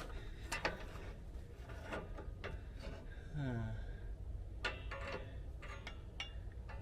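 Scattered metallic clicks and taps of a brake spring tool being worked on a drum brake's return springs, with a short low murmur from a man's voice about halfway through.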